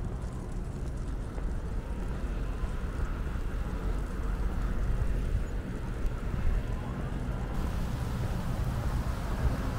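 Wind of a light snowstorm buffeting the microphone: a steady low rumble with a hiss above it, slowly growing louder.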